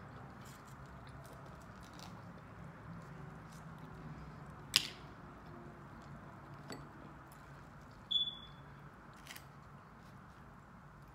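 Quiet eating sounds: chewing and fingers handling crispy fried fish, with scattered small clicks, one sharp loud click about five seconds in and a brief high-pitched squeak about eight seconds in, over a low steady hum.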